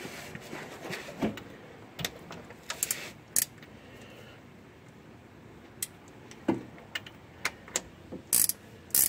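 Sparse light metallic clicks and taps as the front differential's fill plug is threaded in by hand, with a run of sharper clicks in the last few seconds.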